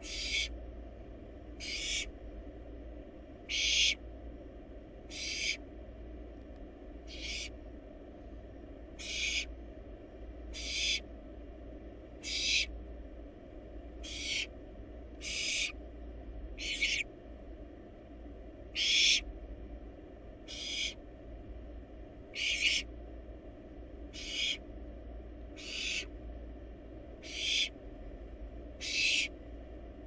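Barn owl nestling's hissing, snore-like begging calls, each about half a second long, repeated steadily every one and a half to two seconds over a faint low hum.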